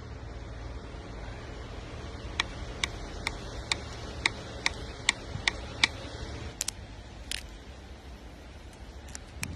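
A metal tool tapping on a painted downhill mountain bike frame: nine sharp ticks at about two a second, then a few slower, softer taps.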